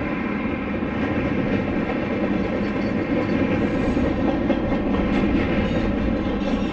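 Union Pacific freight train rolling past close by: a steady, loud rumble and clatter of wheels on rail.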